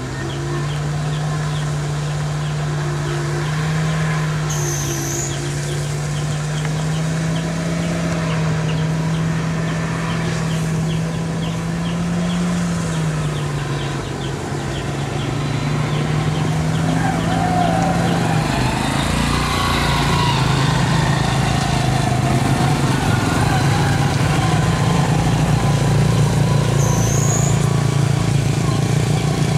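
A minivan's engine held at high revs as its wheels spin in deep mud, the pitch wavering slightly as it strains. About two-thirds of the way in, rougher motorcycle engines join it.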